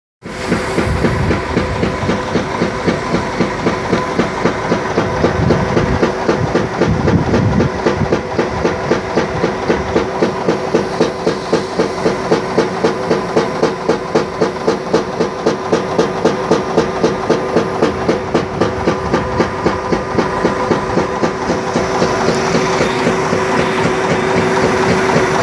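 Rice husk briquetting press running, a steady rhythmic beat of about three strokes a second over a constant motor hum.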